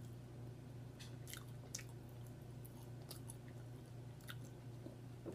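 A person chewing food with wet mouth smacks and clicks, irregular, about one or two a second, over a steady low hum.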